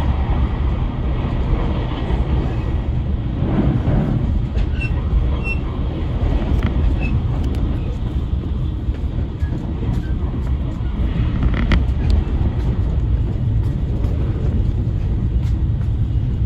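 A train running on rails: a steady low rumble with scattered clicks and knocks from the running gear.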